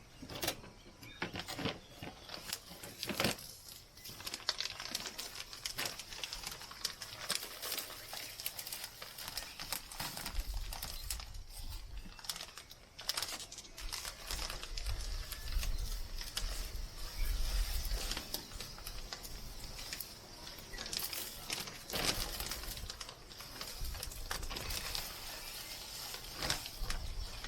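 Plastic bags of potting soil being handled and emptied into planters: plastic crinkling and tearing with loose soil pattering down, with low thumping rumbles in the middle and again later on.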